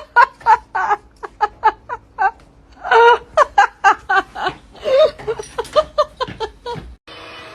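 A person laughing hard in quick repeated bursts, which cut off abruptly about seven seconds in.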